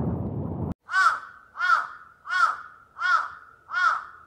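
Wind buffeting the microphone, cut off abruptly under a second in, then a bird's call repeated five times at even intervals, each call rising and falling in pitch.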